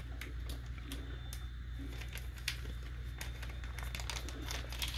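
Faint, scattered clicks and light rustling of a wrapped item being taken from a cardboard box and handled, over a steady low hum.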